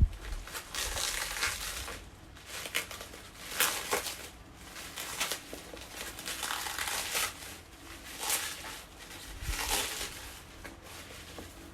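Parcel wrapping being cut and pulled open by hand, crinkling and rustling in repeated bursts.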